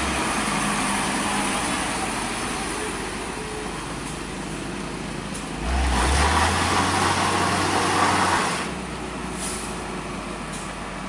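Heavy tanker truck's diesel engine pulling slowly up a steep wet bend, struggling on the slippery climb, under a steady hiss of rain and wet tyres. The engine grows louder about six seconds in for two or three seconds. Two short hisses follow near the end.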